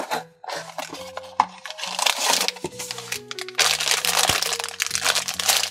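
A cardboard blind box being opened with a few sharp clicks and cracks, then a black foil mystery-figure bag crinkling loudly as hands squeeze and pull it open. Background music plays underneath.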